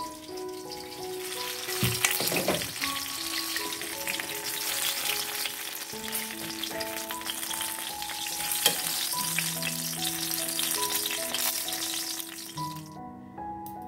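Food sizzling and crackling as it fries in a pan, over light background music. The sizzle cuts off suddenly near the end, leaving only the music.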